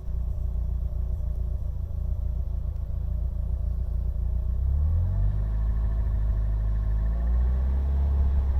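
A motor vehicle's engine running with a low, steady rumble, its pitch rising about four to five seconds in.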